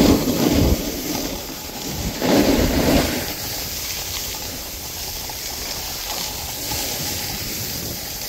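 Snowboard sliding over packed snow, a steady scraping hiss. Two louder scrapes come in the first three seconds.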